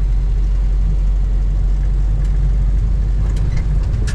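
Renault 4L's four-cylinder petrol engine running as the car drives, heard from inside the cabin as a steady low drone with road noise.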